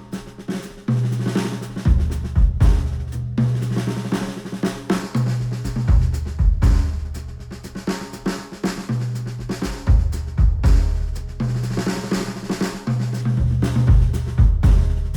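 Music with a drum kit (kick, snare and hi-hat hits) over a deep bass line that steps between notes every second or two, played back through Sennheiser open-back headphones and picked up by microphones at the earcups.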